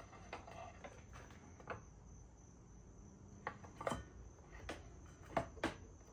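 Faint, scattered clicks and knocks of tools and metal parts being handled while the outboard's lower unit is refitted. Behind them is a steady, high cricket trill.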